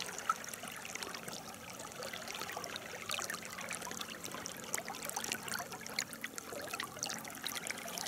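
River water trickling and babbling, a steady rush of flowing water with many small splashing ticks.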